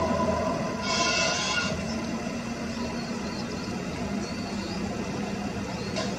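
Steady distant traffic rumble with a low hum. A brief high hiss comes about a second in, and a few faint high chirps sound later.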